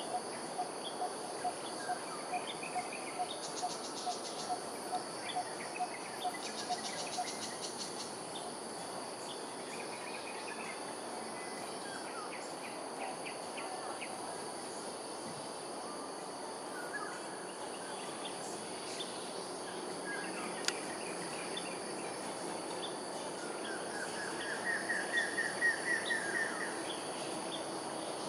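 Steady high drone of insects, with birds calling over it: a low call repeated two or three times a second for the first seven seconds or so, scattered short chirps, and near the end a quick run of rising notes, the loudest sound.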